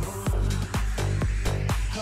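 Background music with a steady beat, about two beats a second, over a deep bass line.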